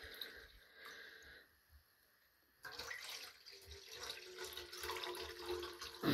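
Water poured from a plastic pitcher into a stainless steel dog bowl, splashing as it fills; the pour starts about two and a half seconds in after a short lull and runs steadily from there.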